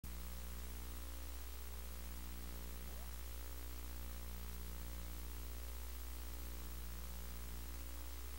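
Low, steady electrical hum with a bed of hiss: the line noise of a VCR capture while the deck outputs a blank blue screen with no tape playing.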